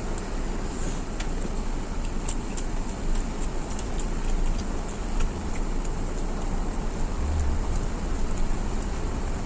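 Steady rumbling background noise with scattered faint clicks, the small sounds of eating and chewing.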